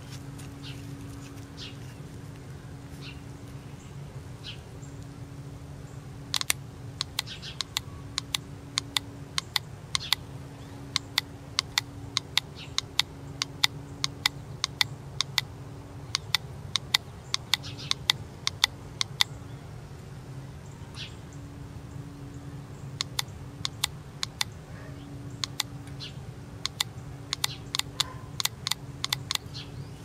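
Runs of sharp, irregular clicks, many in quick succession, over a steady low hum.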